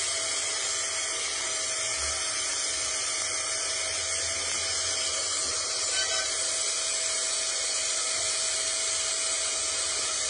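Angle grinder running steadily with its disc against the steel end of a hydraulic cylinder rod: a steady high motor whine over a continuous grinding hiss as the rod is turned by hand.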